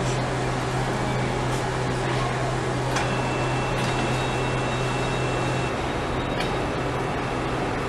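Steady machine hum and hiss of a factory assembly line with a few light clicks. A faint high whine joins about three seconds in, and it and the low hum both cut off about six seconds in.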